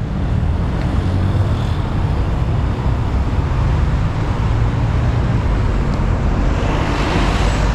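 Traffic on a busy road: a steady rumble and hiss of passing cars, with a vehicle passing close and swelling louder near the end.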